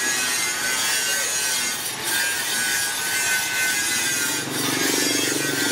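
Steel cleaver blade being sharpened by rubbing it back and forth on a brick: a continuous gritty scraping.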